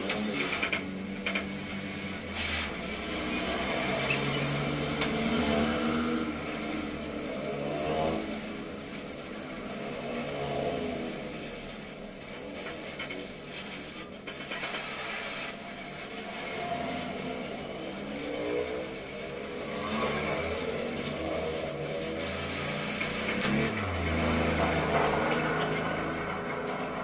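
Motor traffic passing on the road, mostly motorcycles. Several vehicles go by one after another, their engine pitch rising and falling as each passes, with a few sharp knocks in between.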